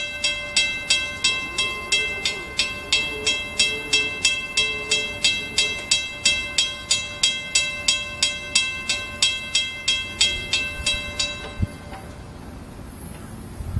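Railroad crossing warning bell ringing in a steady run of strikes, a little over three a second, while the crossing gates lower for an approaching train. It stops about eleven seconds in, once the gates are down.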